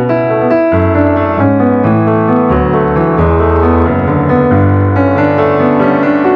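Background music: a piano or electric-piano piece playing a flowing melody over sustained bass notes.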